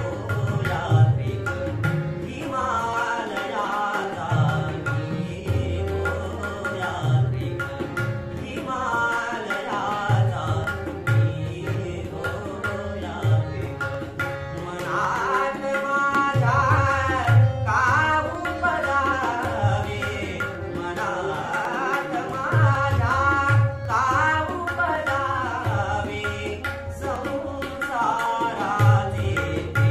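Male voice singing a Marathi song with tabla and harmonium accompaniment: the tabla plays a steady rhythm with deep bass-drum strokes, under a held harmonium drone and the wavering vocal melody.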